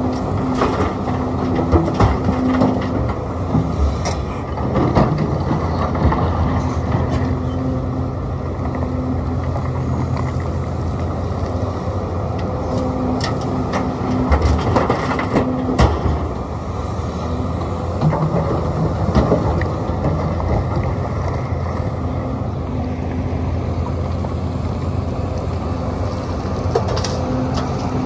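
Sumitomo SH300 excavator's diesel engine running under load, its note shifting as it works, with scattered sharp knocks and clatter.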